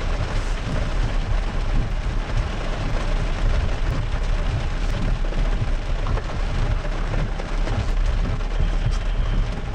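Land Rover driving slowly over rough, wet off-road ground: a steady low rumble of the vehicle with a few small knocks.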